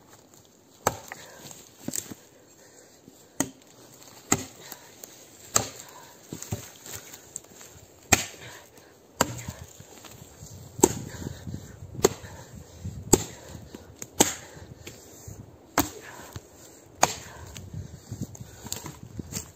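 Bellota axe chopping pine branches: sharp, repeated strikes into the wood, about one a second.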